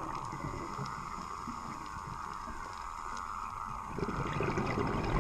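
Muffled underwater noise picked up through a GoPro's waterproof housing, with a burst of low bubbling from about four seconds in: a scuba diver breathing out through a regulator.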